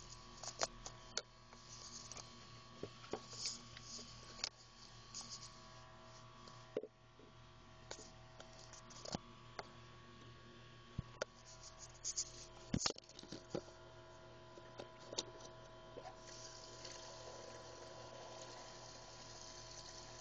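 Camera handling noise: scattered sharp clicks and taps over a faint steady hum, with a faint hiss near the end.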